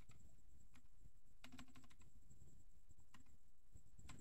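Keystrokes on a computer keyboard: a few scattered key clicks, with a quick run of several about one and a half seconds in, over a faint steady high whine.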